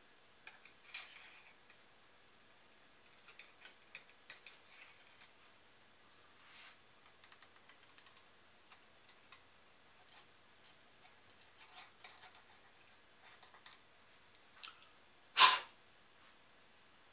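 Small metal clicks and rattles of parts on a small lathe's tool holder being handled and adjusted by hand, with one sharp, much louder knock about fifteen seconds in.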